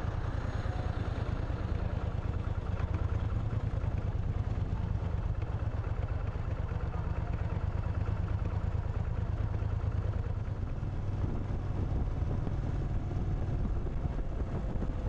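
Moto Guzzi motorcycle's V-twin engine running steadily under load while climbing a steep mountain road.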